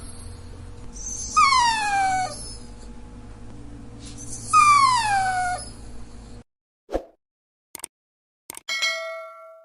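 A dachshund gives two drawn-out whines, about three seconds apart, each about a second long and falling in pitch, over a low steady background hum. Near the end come a few sharp clicks and a ringing chime that fades away.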